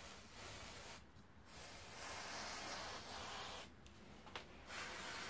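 Hand-filing strokes along the edge of a wet toughened glass pane: three long, hissing rasps with short pauses between them, and a small tick near the end.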